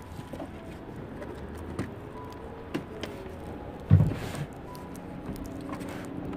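A plastic MaxxAir roof vent fan housing being handled and pressed onto its base on a van roof: a few light clicks and knocks, with one solid thump about four seconds in. Steady background hum from outside.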